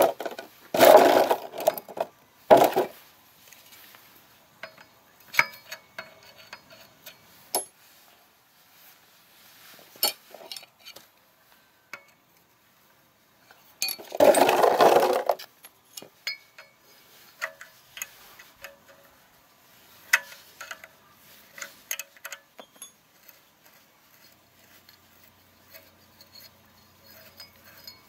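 Light metallic clicks and clinks from hands working the cast aluminium impeller onto the shaft of a small water pump, with two louder noisy sounds, each about a second and a half long, near the start and about halfway through.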